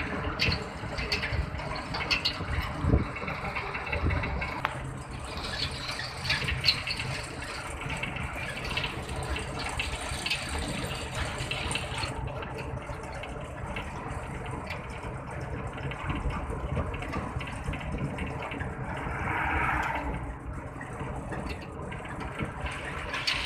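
Road noise of a vehicle driving at speed on a highway: a steady rush of tyres and wind over a low rumble, with a few light knocks.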